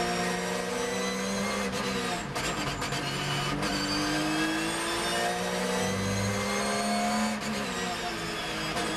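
Porsche 911 GT3 R flat-six race engine heard from inside the cockpit: the note falls as it brakes and downshifts, with a few crackles about two seconds in, then climbs steadily under hard acceleration, dropping briefly at an upshift near the end before rising again.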